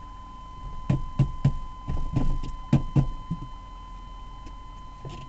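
A run of about eight dull knocks from about a second in to about three and a half seconds in, heard inside a car's cabin over a steady high-pitched tone.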